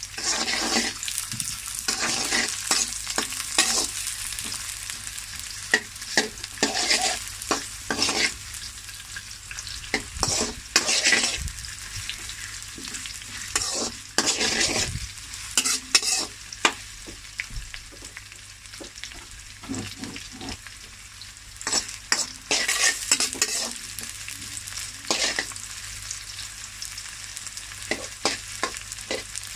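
Stir-frying in a hot pan: a steady frying sizzle with repeated stirring strokes against the pan, which come in clusters with pauses between them.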